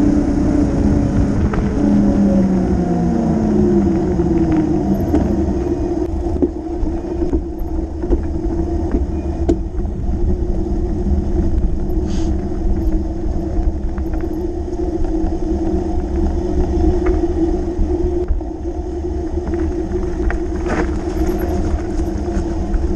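Fat bike riding noise. The fat tyres hum, and the hum falls in pitch over the first few seconds as the bike slows. Underneath are a steady drone and low wind rumble on the camera microphone, with a few sharp knocks from bumps in the track.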